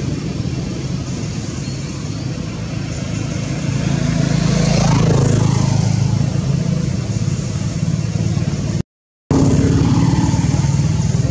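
Motor vehicle engine running steadily close by, growing louder about four seconds in as a vehicle passes. The sound cuts out briefly near the end.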